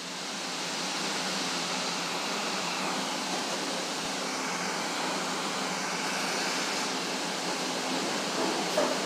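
Chicago 'L' rapid-transit car with AC traction motors running under power, heard from inside: a steady rushing noise of the moving train with a faint low hum under it. A few wheel clacks start near the end as it rolls through the junction trackwork.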